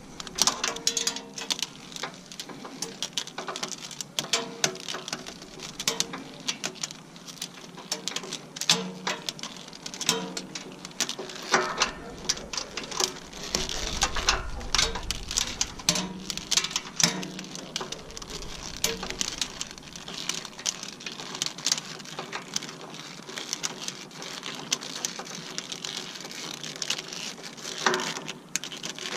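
Plastic spiral wrap being wound by hand around hydraulic hoses: irregular crinkling and clicking of the plastic, with short buzzing scrapes now and then.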